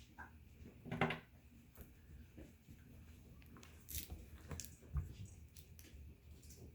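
Goldendoodle puppies moving about and mouthing: scattered soft clicks, knocks and rustles, with a louder bump about a second in.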